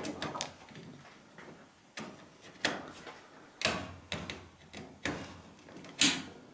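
Screwdriver working a screw out of the sheet-steel switch bracket of an electric cooker's control panel, making a handful of irregular sharp metallic clicks and knocks about a second apart.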